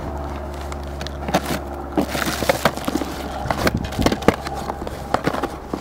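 Plastic packaging crinkling and items knocking and shuffling inside a cardboard shipping box as things are dug out by hand, in scattered clicks and rustles over a steady low rumble.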